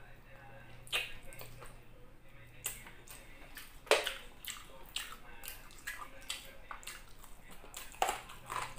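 Close-up wet eating sounds: chewing and lip smacks of a person eating saucy chicken by hand, with a few sharp wet smacks, the loudest about four seconds in and two more near the end.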